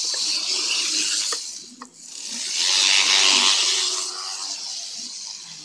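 N-gauge model train running fast along its track, a rasping whir that swells to its loudest about three seconds in as it passes close, then fades.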